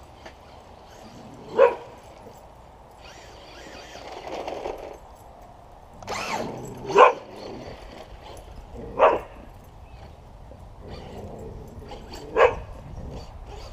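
A young Australian cattle dog barking four times, single sharp barks a few seconds apart, excited barking while chasing a radio-controlled car.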